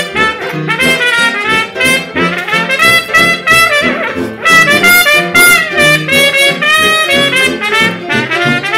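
Traditional jazz played on trumpet, piano and tuba: the trumpet carries the melody over piano chords and a tuba bass line.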